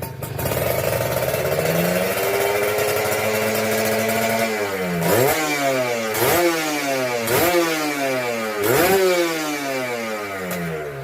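Kawasaki Ninja motorcycle engine revved up and held, then blipped four times, the revs falling back after each blip and settling toward idle near the end. It is running with an oversized carburettor main jet, which makes it run rough ('ngorok').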